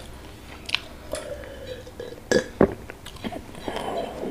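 Close-up chewing and mouth sounds of a person eating rice and fish with his fingers, with two louder sharp mouth sounds a little past halfway.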